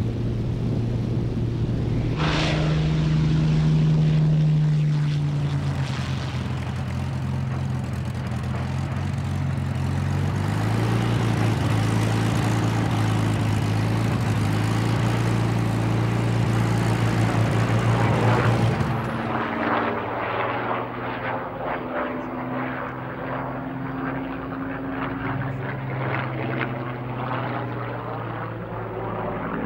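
Hawker Hurricane's Rolls-Royce Merlin V12 engine and propeller at high power through the takeoff and climb, a steady deep drone whose pitch shifts a few times. About two-thirds of the way through, the sound turns duller and takes on a wavering, swirling quality.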